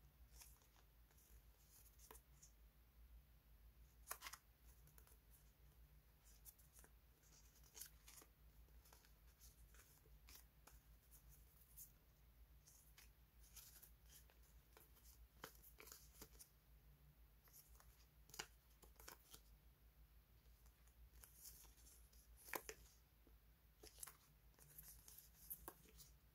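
Faint rustling and crisp flicks of die-cut paper sticker flakes being handled and fanned through, scattered irregularly over a low steady hum.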